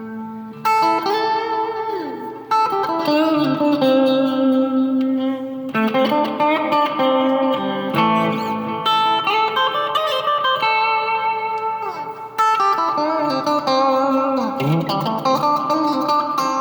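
Termite Stratocaster electric guitar played through a clean amp channel with a little reverb: struck chords ringing out between single-note lines with bent and slid notes.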